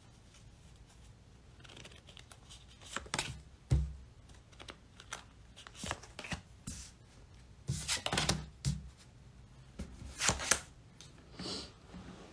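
Tarot cards being handled and shuffled: irregular crisp card snaps and rustles, with a few louder slaps scattered through.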